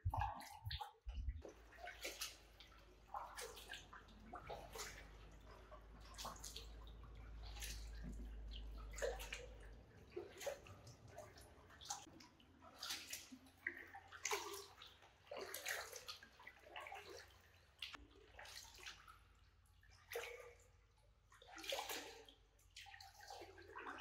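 Kayak paddles dipping and pulling through still canal water inside a canal tunnel: a splash and trickle of drips roughly every second or so, in an uneven rhythm.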